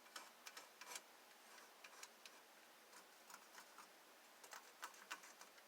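Faint, irregular light clicks and ticks of small tools and wood being handled while measuring.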